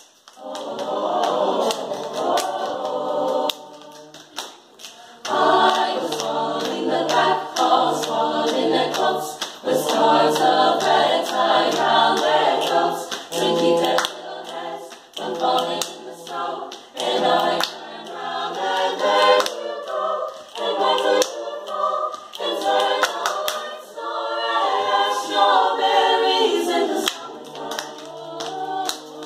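Mixed teenage choir singing a cappella in close harmony over a low bass line, with hand claps keeping a steady beat. The singing drops back briefly about four seconds in, then comes in full again.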